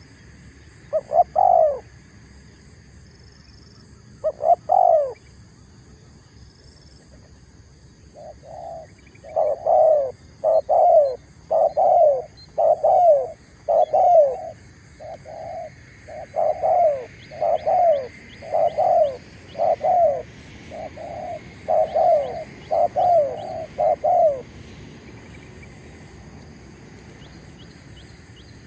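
Spotted dove cooing: two short phrases, then a long run of repeated coos at about two a second that stops a few seconds before the end. Steady high insect trilling runs underneath.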